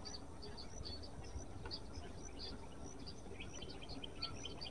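Small birds chirping: many short, high chirps scattered throughout, over a steady low background rumble.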